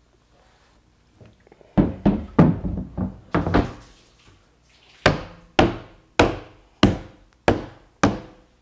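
Manhole cover set onto a high-density polyethylene manhole cone, a cluster of knocks as it lands. Then six sharp thumps, a little under two a second, as it is pushed down by hand to seat on the cone's lip.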